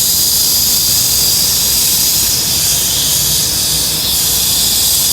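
Compressed air hissing out of a punctured truck tire: a loud, steady, high hiss.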